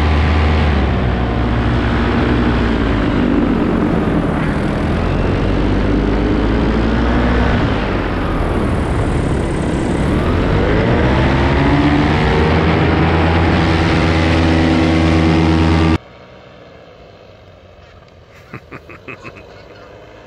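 Paramotor engine and propeller running at close range, its pitch falling and rising with throttle changes. The sound cuts off suddenly near the end and is replaced by a much quieter background with a few short goose honks.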